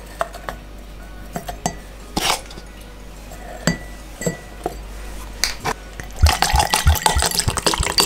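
Ice cubes dropped one at a time into a ribbed drinking glass, several separate clinks. About six seconds in, a drink is poured over the ice, splashing and filling the glass.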